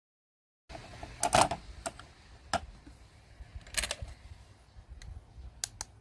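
Hard plastic clicking and tapping from toy pieces being handled, about eight sharp clicks at uneven intervals, the loudest about a second and a half in and near four seconds. The sound starts abruptly after a moment of dead silence.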